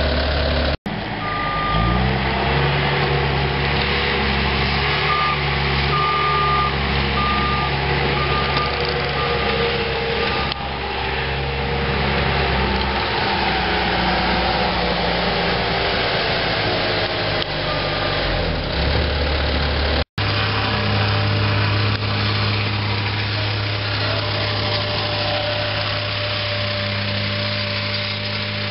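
Heavy construction machinery working, led by a skid-steer loader's engine, which rises and falls in pitch as it works, with a backup alarm beeping repeatedly in the first third. After an abrupt break, a steadier, even engine hum continues.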